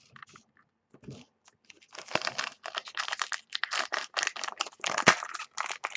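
Trading-card pack wrapper crinkling and rustling as it is handled and worked open, in a dense run of crackles from about two seconds in, after a few light clicks of cards set down on a desk.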